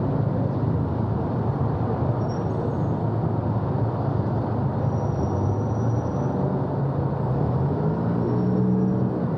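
Steady low rumble of road traffic, with a vehicle engine rising in pitch near the end.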